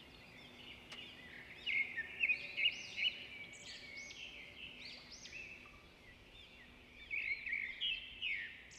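Birds chirping: many quick, high chirps, loudest in two bouts, one about two to three seconds in and another near the end.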